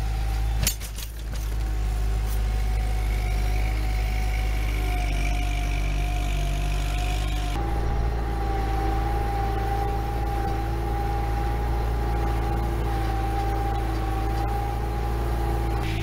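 Kubota 7040 tractor's diesel engine running steadily under load while pulling a three-furrow plough through the soil. A brief sharp knock comes about half a second in.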